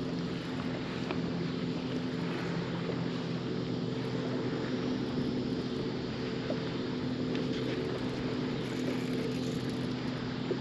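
A boat's motor humming steadily, one held note with several overtones, over an even wash of wind and water noise.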